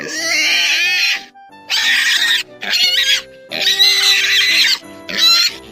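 Pig squealing in five high-pitched bursts, the first and fourth long and the others short, over background music with steady held notes.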